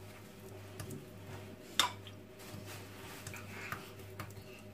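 Metal spoon scraping and spreading raw ground-meat filling onto a round of rolled-out dough, with light ticks and one sharp clink of the spoon a little under two seconds in, over a steady low hum.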